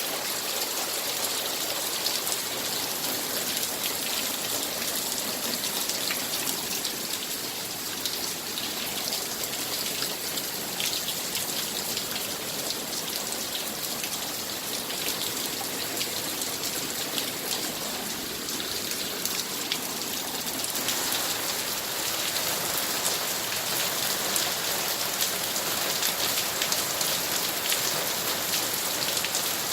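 Heavy rain pouring down steadily, a dense hiss of drops pattering on surfaces, growing a little louder near the end.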